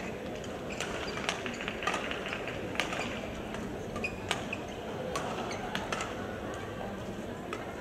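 A fast men's doubles badminton rally: rackets striking the shuttlecock in about eight sharp, unevenly spaced cracks, often less than a second apart, over the steady murmur of the hall.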